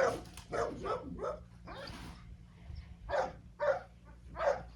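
A dog barking over and over: about ten short, sharp barks at uneven intervals, several in quick succession at the start, then a pause, then more near the end.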